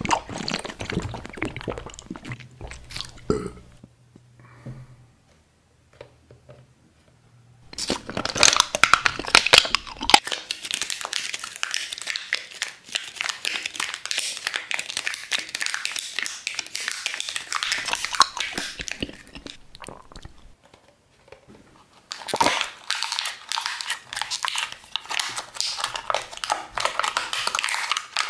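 Thin clear plastic being crumpled and crunched in the hands, a dense crackling in two long stretches with a lull between them. Only a few light clicks come before the first stretch starts about eight seconds in.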